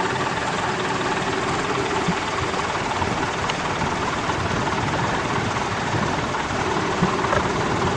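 A 4x4's engine idling steadily.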